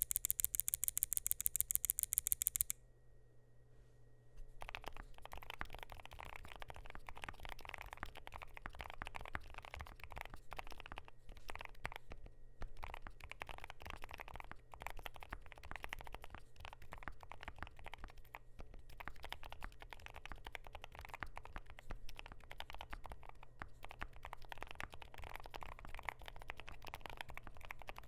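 A rapid, even run of sharp, bright clicks for the first couple of seconds, then quiet. From about four and a half seconds in, steady continuous typing on a KBD8X MKIII mechanical keyboard with Gateron Zero Degree silent switches and a polycarbonate plate: a soft, muted clatter of keystrokes.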